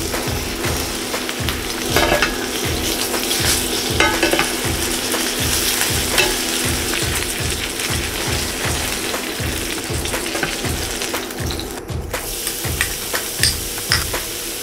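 Chicken legs frying in oil and butter in a skillet: a steady sizzle, with a few sharp clicks as the pieces are handled. The sizzle cuts out briefly near the end, then resumes.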